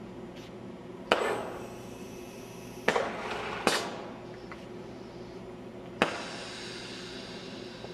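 Automated gantry rig's actuators moving the tooling: four sharp metallic clacks, about a second in, near three seconds, just before four seconds and at six seconds, each with a short fading tail, over a steady machine hum.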